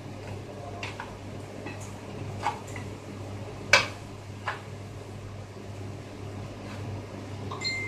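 Cooking pot and serving plate knocking together as a pot of maqluba is turned upside down onto the plate and set down on the counter: a few light knocks and one sharp clack a little under four seconds in, over a steady low hum.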